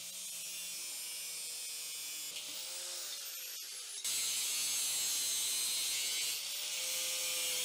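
Angle grinder with a thin cutoff disc cutting a sheet-metal repair panel to size. The motor whines steadily with a hiss of grinding, its pitch dipping and recovering as the disc bites. It gets louder about four seconds in.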